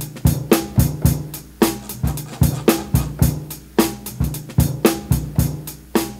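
Sampled boom-bap drum break looping with steady kick, snare and hi-hat hits, heavily compressed through the MPC's Compressor Vintage with a slow attack so each hit keeps its snap, an attempt to imitate the Boss SP-303's vinyl sim compressor.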